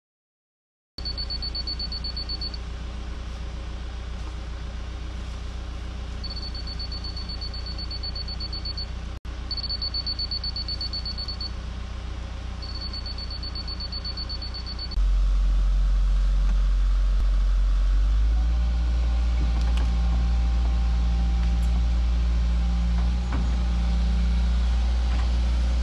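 Excavator diesel engine running steadily, with a high-pitched pulsed alarm beeping in four spells over the first half. About halfway through the engine gets louder, working under heavier load, and stays up.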